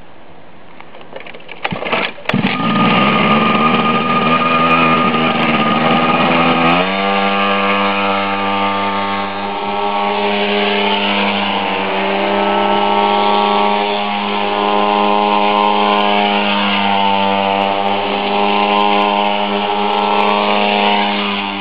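Minibike's small engine catching with a few sputters about two seconds in, then running loud at high, fairly steady revs with small dips and rises as it is ridden.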